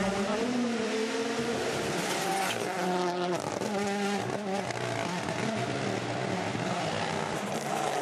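Toyota GR Yaris Rally1 rally car's turbocharged four-cylinder engine pulling hard on a stage, rising in pitch and dropping back again and again as it changes gear and lifts for corners.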